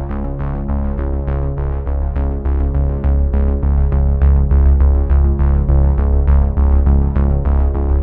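Background music with a deep bass, sustained chords and a quick, even pulse of short notes, about four a second.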